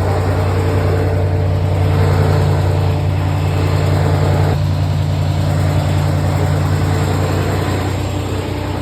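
Steady vehicle engine drone with a constant low hum and a couple of fainter higher tones.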